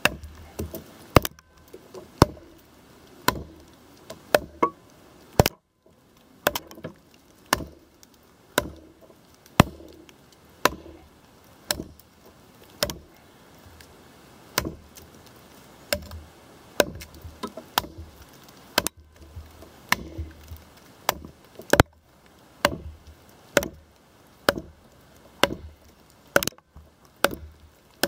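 A Condor Pack Golok, a short, heavy machete-style chopper, chopping into a log: sharp woody blows at a steady pace of about one a second.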